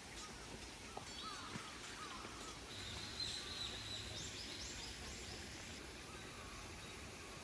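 Faint outdoor ambience with birdsong: a few short gliding calls early on, then a higher, held call with quick upward flourishes about three to four seconds in, over a steady soft hiss.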